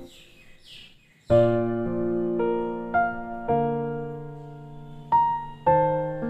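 Slow background piano music, starting about a second in, with notes and chords struck one at a time and left to ring out.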